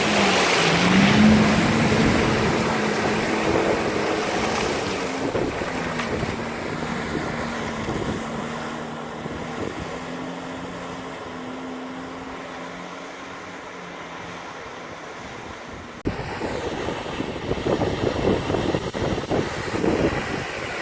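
Off-road vehicle engine revving, rising in pitch about a second in, then holding and fading as the vehicle moves away. About 16 s in the sound changes suddenly to a loud, uneven rush with wind on the microphone.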